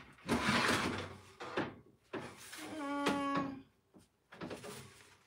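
Oven door pulled open and the metal oven rack with a baking sheet of cookies slid out: a scraping rush of metal, then a short squeak and a clank about three seconds in.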